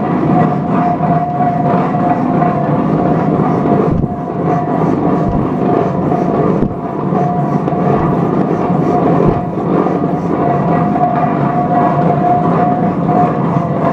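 Engine of a 1917 Minneapolis 40-80 tractor running after its rebuild: a loud steady mechanical clatter of the open valve gear, with a thin steady high tone over it.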